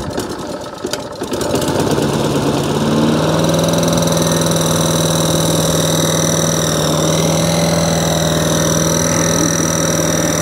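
Hayter 48 rotary lawn mower's petrol engine, just started on choke. It runs rough and uneven for about the first second and a half, then settles into a steady, even drone.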